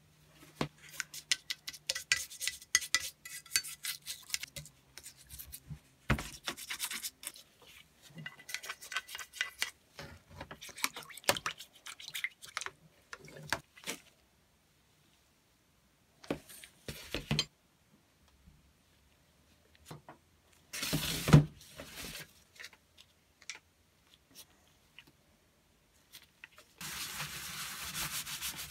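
Hand work on the pump's old steel parts: rapid scratching and scraping with small clinks on the metal, in spurts. One loud knock comes about two-thirds of the way through, and near the end a cloth rubs steadily over the steel frame.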